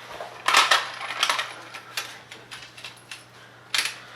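Small metal tools clinking and clattering against each other, while another screwdriver is picked out in place of one that is too small: a string of sharp clinks, loudest about half a second in and again near the end.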